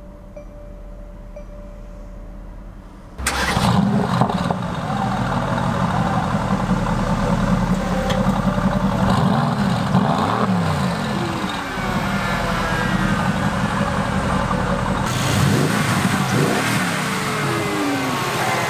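Mercedes-AMG GT S twin-turbo 4.0-litre V8 starting about three seconds in with a sudden loud catch, then running loud and being revved up and down a few times.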